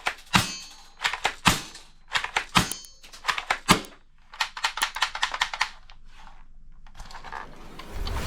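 Toy guns' plastic mechanisms clicking and snapping in quick clusters of sharp strikes as they are worked and fired, fainter after about four seconds.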